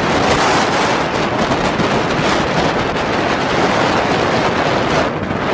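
Strong wind blowing across the microphone, a loud, steady rushing noise.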